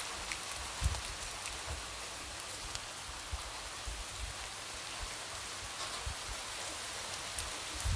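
Light rain tapping against a window: a steady hiss of rainfall with scattered drop taps and occasional soft low thuds, the strongest about a second in.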